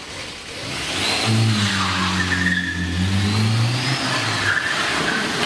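A hatchback car sliding around a lot: its engine revving hard while the tyres squeal. The sound swells about a second in, and the engine note drops away near the end while the squeal goes on.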